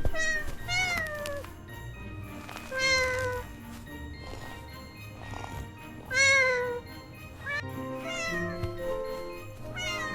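A kitten's high meows, about five separate calls, each sliding down in pitch, over soft background music.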